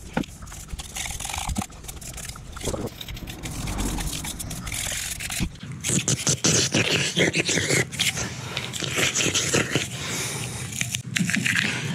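A tool scrubbing in and out of the splined end of a drive shaft, metal scraping and rubbing as surface rust is cleaned from the splines. It grows louder and busier about halfway through.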